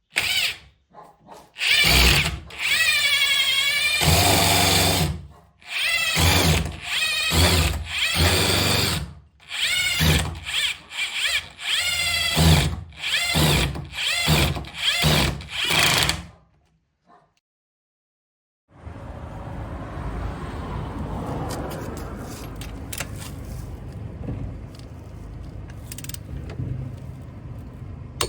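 Parkside PASSK 20-Li C4 cordless impact wrench triggered in about a dozen short bursts, its motor pitch rising and falling with each pull of the trigger. After a pause of about two seconds comes a steadier, quieter background noise with a few light clicks.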